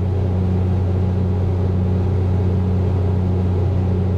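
Tractor engine running steadily at working revs as a low, even hum, heard from inside the cab while it drives a machine chopping hay or straw.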